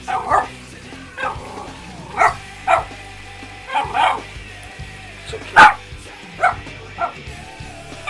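Miniature Pinscher barking at a pet water fountain: about ten short barks at irregular intervals, the loudest a little past halfway.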